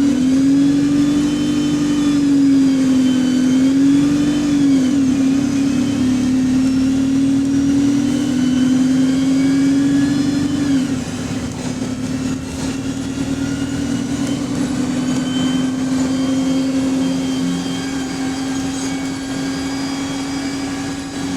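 Inside a bus with a Voith automatic gearbox: the engine and transmission give a loud, steady drone that wavers in pitch for the first few seconds as the bus drives on. About eleven seconds in, the pitch dips and the sound drops in level, like a gear change, and the bus then runs on more quietly.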